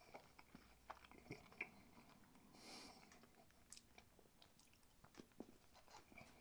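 Faint chewing of a small chocolate-covered sweet with a biscuit centre, mouth closed: small crunches and soft mouth clicks scattered throughout.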